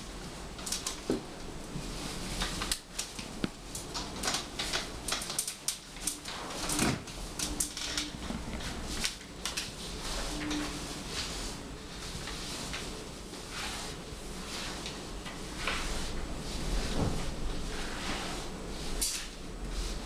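Paper bag crinkling and rustling in irregular crackles and clicks as it shifts on a crawling person's head, with scattered knocks and shuffling of hands and knees.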